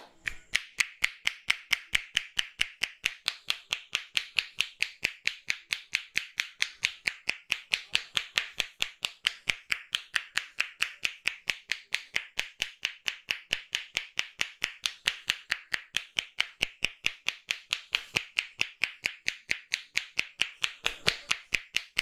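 Head-massage percussion: the barber's hands striking the customer's head in a fast, even rhythm of sharp claps, about four or five a second.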